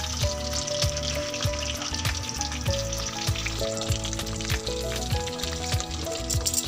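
Pieces of fish frying in hot oil in a wok, a steady sizzle, with background music of held notes and a regular low beat.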